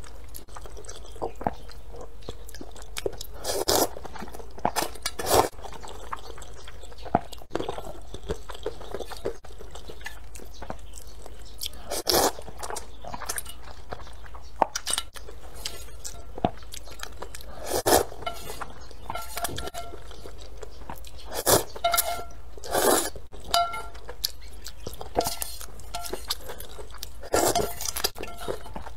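Close-up eating sounds of a person slurping spicy rice noodles and broth from a metal bowl. Separate loud slurps come every few seconds, with chewing in between.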